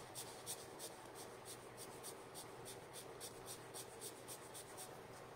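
Small water brush flicking short lines onto watercolour card: faint, quick scratchy brush strokes on the paper, about four a second.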